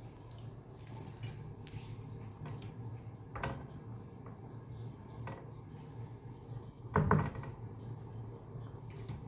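A few sharp light clicks and clinks over a steady low hum, with a louder knock about seven seconds in.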